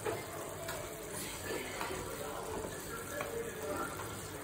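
Egg masala curry simmering in a pan, the sauce bubbling with small pops.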